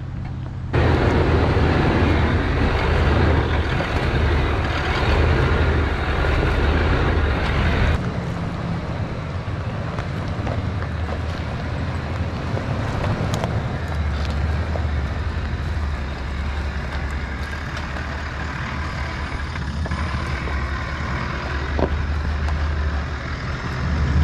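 Toyota LandCruiser 70's engine running at low speed as it crawls down a stony dirt track towing a camper trailer, with occasional clicks and crunches from the tyres on the gravel. Louder and noisier for the first several seconds, then drops back about eight seconds in.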